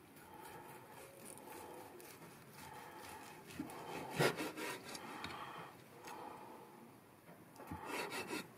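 A large kitchen knife sawing back and forth through a slow-cooked beef roast on a wooden cutting board, the blade scraping the board. The scraping comes in strokes, and there is a louder stretch about four seconds in and another near the end.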